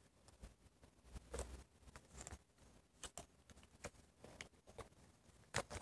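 Faint clicks and taps of small plastic knockoff Lego pieces being handled and pressed together, a few separate ones, the loudest near the end.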